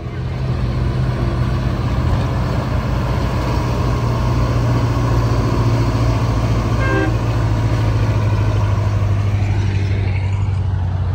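The Detroit Diesel 8V71 two-stroke V8 diesel of a 1967 GMC 9500 tractor running with a steady low drone as the truck drives. A brief horn toot comes about seven seconds in.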